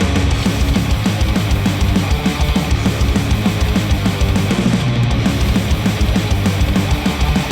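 Heavy rock music with dense, fast drumming, played through HIFIMAN Edition XV headphones and picked up by microphones at the earcups.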